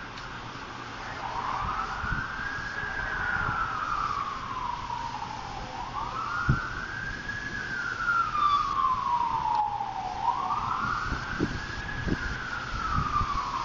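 A siren wailing: its pitch rises quickly and then falls slowly, about three times, each cycle roughly four and a half seconds long. A few short low thumps sound beneath it, the sharpest about six and a half seconds in.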